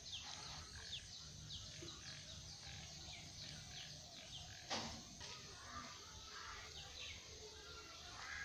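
Birds chirping: many short, falling calls repeating over a faint background hum, with a single knock about five seconds in.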